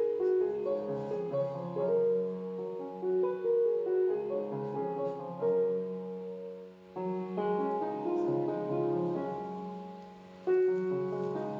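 Background piano music playing gentle melodic phrases, with a brief dip in loudness before a new phrase starts about seven seconds in.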